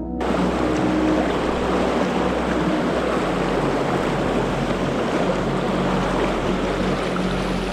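Fast, shallow river water rushing over a rocky bed close to the microphone: a loud, steady wash of noise that starts suddenly just after the beginning.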